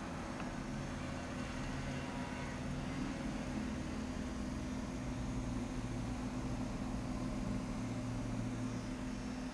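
Cooling fan of an MSI 9500GT MD512 graphics card running at its fixed speed: a steady hum over a whirring hiss. The noise is unbearable, and the fan speed cannot be turned down.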